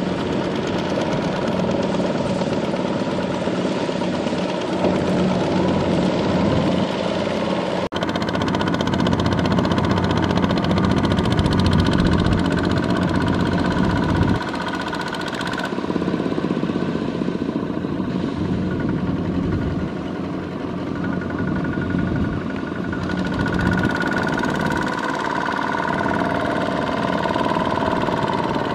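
Single-cylinder diesel engine of a two-wheel walking tractor running steadily under load as it pulls a trailer of rice sacks, with a brief break and a few sudden shifts in the sound where shots change.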